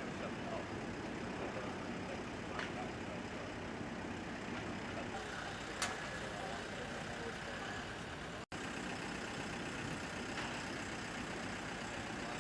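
Heavy vehicle engine running steadily, with a couple of light knocks and a split-second dropout about eight and a half seconds in.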